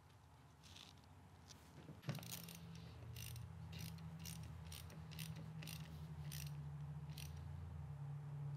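Faint clicking of a socket ratchet, about two or three clicks a second, as a PCV valve is tightened into a Subaru FA20 engine. Under it runs a steady low hum that starts about two seconds in.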